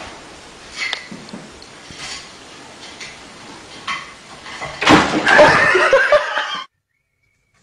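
A sudden crash and clatter about five seconds in as a cat leaping from a chair back hits the table, followed by a person's loud vocal reaction that cuts off abruptly.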